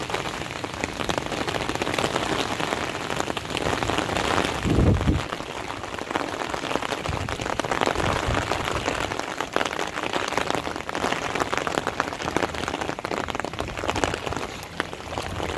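Steady rain pattering on floodwater and vegetation, a dense hiss of many small drop ticks. A brief low rumble cuts in about five seconds in and is the loudest moment.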